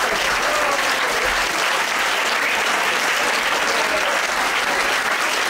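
A large audience applauding steadily, with a few voices faintly audible through the clapping.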